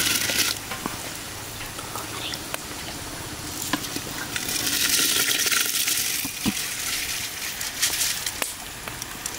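Rice tipped by hand and then poured from a vessel into a pot of boiling spiced water, splashing in. The water hisses steadily underneath, with a short splash at the start, the loudest and longest pour in the middle, and another splash near the end.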